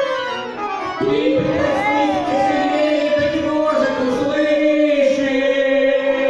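Live song: a man and a woman singing into microphones with accordion accompaniment, amplified through the hall's speakers. From about a second in the voice holds one long note with vibrato over the accordion's chords.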